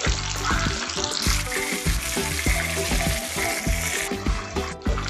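A piece of chital fish frying in hot oil, sizzling, louder and brighter from about a second in and cutting off about four seconds in; background music with a beat runs underneath.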